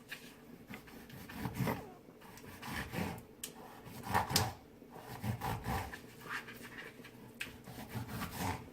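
A not very sharp kitchen knife sawing and scoring through the tough skin of a whole pompano on a cutting board, in a series of uneven strokes; the blunt blade is why it cuts with effort.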